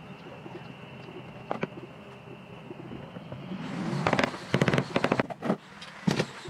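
Hammer striking a wooden chair frame, driving freshly glued joints together: a quick run of sharp knocks starting about four seconds in, then a few single blows.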